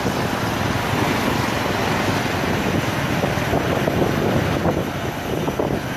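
Riding a motorbike through city traffic: a steady mix of engine and road noise from the surrounding motorbikes, with wind rushing over the microphone.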